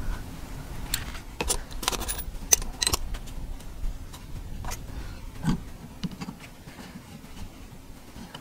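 Small metal parts and hand tools clinking and clicking while a hose clamp is fitted on a fuel line, with a quick cluster of sharp, briefly ringing clinks between about one and three seconds in and a single knock a little later.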